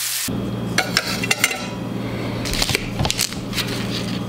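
Metal spatula clinking and scraping against plates as fried fish fillets are slid off onto them: a scattering of light clinks and scrapes over a steady low hum. The hiss of fish frying in a cast-iron skillet cuts off just after the start.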